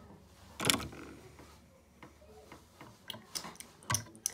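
Lego minifigures and bricks being handled: one sharp plastic click about two-thirds of a second in, then a scatter of lighter clicks and taps near the end.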